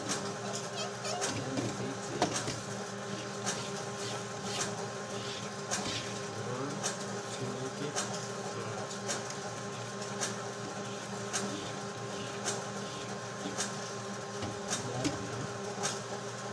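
Scattered light clicks and knocks, about one a second, from ribbon rolls being handled and fitted onto the spindles of a thermal label printer, over a steady background hum.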